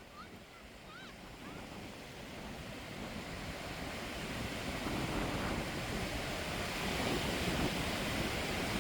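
Surf and wind rushing on the microphone, growing steadily louder, with a few faint short bird chirps near the start.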